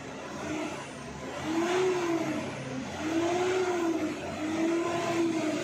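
Mitsubishi Pajero engine revved repeatedly in Park, heard from inside the cabin, its note rising and falling three times. The engine is being revved to bring it up to working temperature faster.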